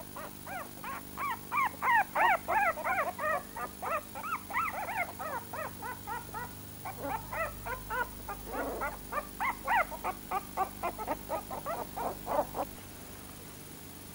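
Several young puppies whimpering and squealing in quick, overlapping high calls, each one rising and falling in pitch; the calls stop near the end.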